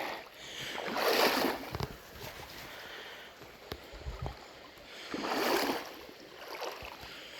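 Legs wading through a knee-deep creek, water sloshing in two swells a few seconds apart, over the steady run of the stream.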